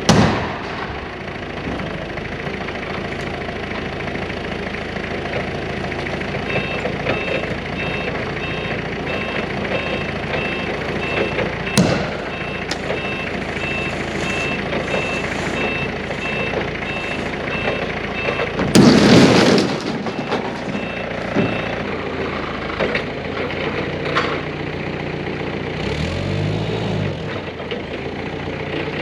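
Heavy equipment engine running steadily, its reversing alarm beeping for about ten seconds. About two-thirds of the way through comes a loud crunching crash lasting about a second: the brittle cone tanks breaking as they come off.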